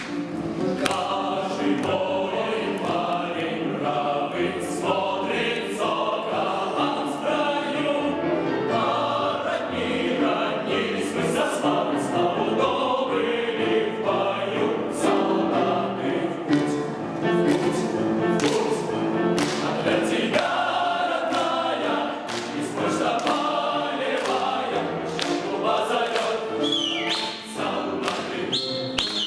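A group of voices singing together in chorus with piano accompaniment, with frequent short, sharp taps through the music.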